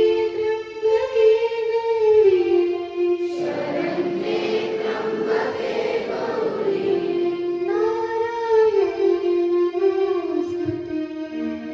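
A group of voices singing together in unison, holding long notes.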